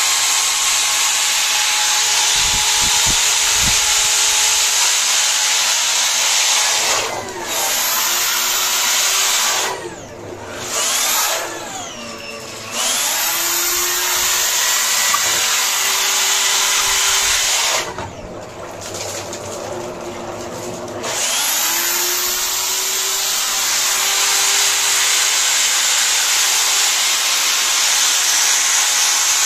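Steelcheng 950 W corded electric drill running at high speed with its chuck spinning in a bucket of water, throwing spray. The motor whine drops away and picks back up several times, the pitch falling and rising as it slows and speeds up again, with the longest break about two-thirds through.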